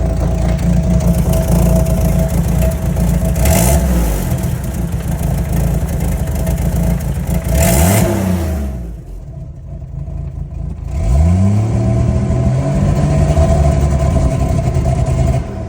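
1989 Jeep Wrangler YJ's 4.2-litre inline-six engine, which its owner says idles rough, being revved. Two short blips rise and fall, each with a brief rushing hiss at its peak. After a short drop toward idle, a longer rev is held for several seconds and then falls near the end.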